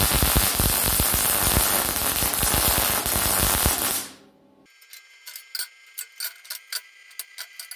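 Electric arc welding steel flat bar: a loud, dense crackling of the arc that stops about four seconds in. After it comes a much fainter steady high whine with scattered sharp clicks.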